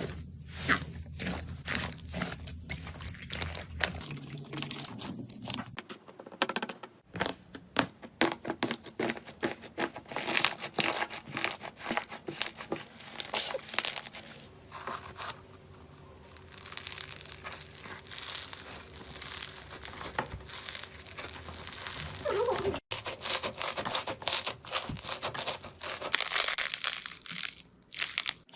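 Slime being pressed, stretched and squeezed by hand, giving dense, irregular crackling and popping with crinkly, tearing textures.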